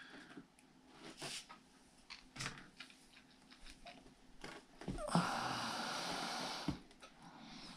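Faint scattered clicks and scrapes of a hot plastic-welding tip and scissor blades working melted plastic into a screen mesh patch on a plastic RC truck body. About five seconds in comes a louder breathy hiss lasting under two seconds.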